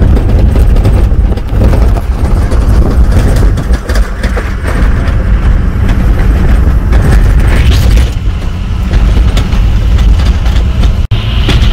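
Cabin noise of an SUV driving over a rough sand track: a loud, steady low rumble of engine and tyres, with irregular jolts and rattles from the bumping.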